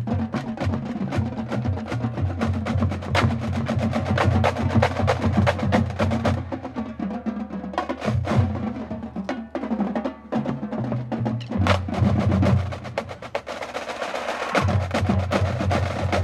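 Marching drumline playing a cadence: rapid snare drum strokes and rolls over pitched bass drums. The bass drums drop out for a few seconds in the middle, then come back in.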